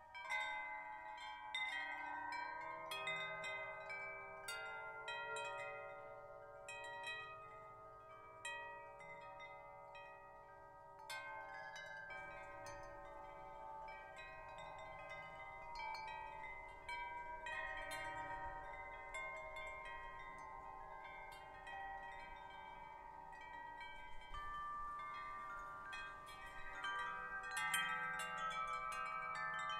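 Metal tube wind chimes swinging and ringing, the wooden striker knocking the tubes at irregular moments so that many long, overlapping tones ring together, with fresh flurries of strikes about a third of the way in and again near the end.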